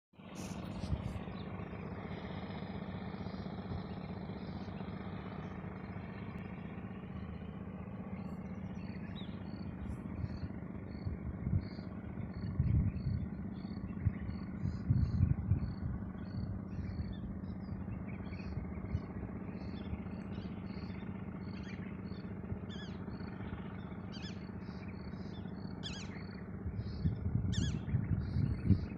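A steady, low motor drone, with birds chirping in short repeated calls, about two a second, from about a third of the way in.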